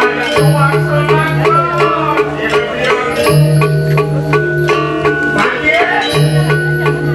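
Balinese gamelan playing dance accompaniment: fast, dense metallophone strikes with cymbal clashes over a low pulsing tone that breaks off and returns about every three seconds.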